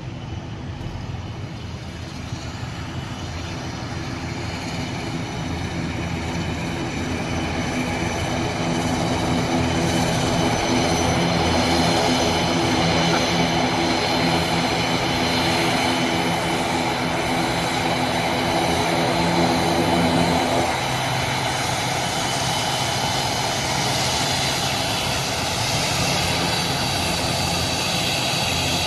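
Twin-turboprop airliner's engines and propellers running steadily, growing louder as it approaches, then settling lower about twenty seconds in.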